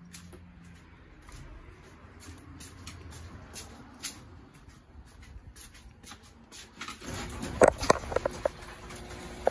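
Rustling handling noise with scattered light clicks, then a cluster of louder clicks and knocks about seven to eight and a half seconds in.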